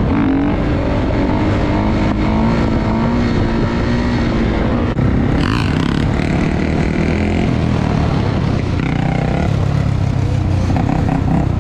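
Dirt bike engine running, loud and steady.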